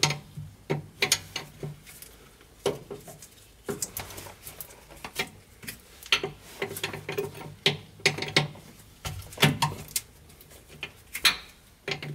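Irregular metal clicks and clinks of a wrench working the park brake air line fitting loose from an air brake chamber.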